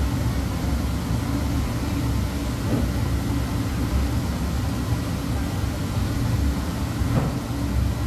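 Commercial dish machine and dish-room equipment running with a steady low mechanical rumble and hum, with a couple of faint knocks from racks being handled, about three and seven seconds in.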